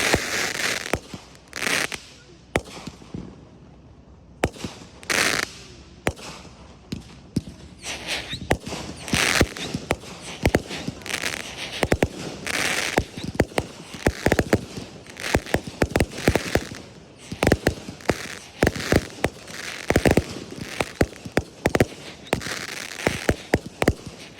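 Fireworks going off: rapid sharp bangs of bursting shells with crackle between them, easing briefly about three seconds in, then firing thick and fast for the rest.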